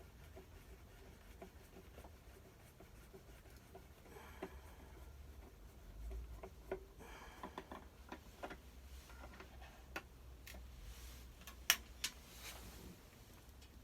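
Faint scattered clicks and taps from a Phillips screwdriver working the screws of a plastic toy housing. They grow busier about halfway through, with one sharper click near the end.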